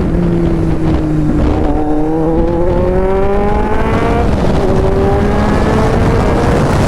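Kawasaki Z800's inline-four engine accelerating under load, its pitch climbing steadily and dropping sharply at an upshift about four seconds in, then climbing again. A rushing noise grows near the end.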